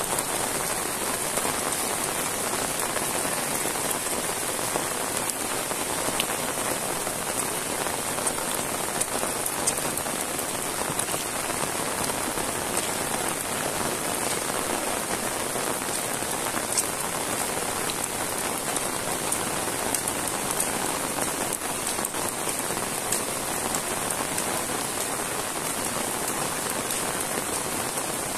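Heavy rain falling steadily on a paved road and leafy vegetation, a dense even hiss with many close individual drops ticking through it.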